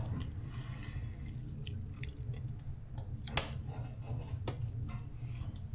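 A man chewing a mouthful of food, with a few small clicks.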